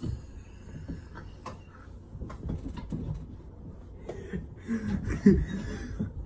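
A man laughing quietly, mixed with scattered small knocks and rustles as he moves about. There are a few short voice sounds about five seconds in.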